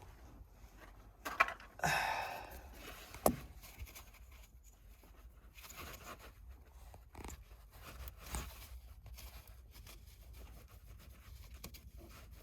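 Quiet work-handling noises: a few sharp clicks and knocks, and a short scraping rustle about two seconds in, over a low steady rumble.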